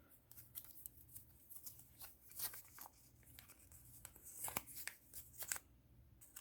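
Faint rustling and scattered clicks of Pokemon card packs being handled and cut open with scissors, a few sharper snips around the middle and near the end.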